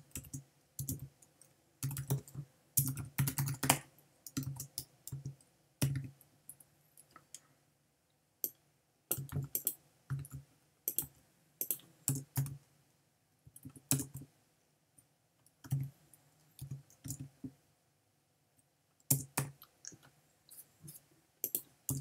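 Typing on a computer keyboard: irregular runs of key clicks broken by pauses of a second or two.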